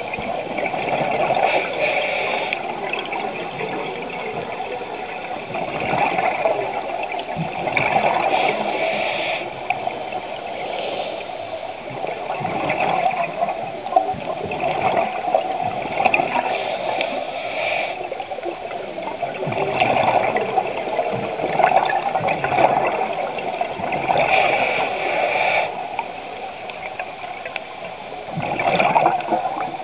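Underwater scuba breathing: a diver's regulator exhaust bubbling out in repeated rushes every few seconds, one for each breath out.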